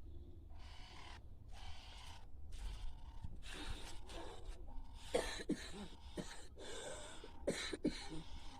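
A person's voice making breathy gasps and groans, in a series of short outbursts with few clear words.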